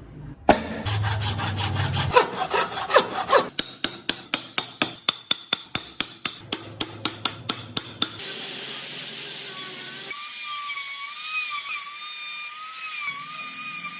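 Hand tools working wood: a run of even rasping or sawing strokes, about four or five a second, then a steady hiss and, near the end, the wavering whine of a small electric power tool.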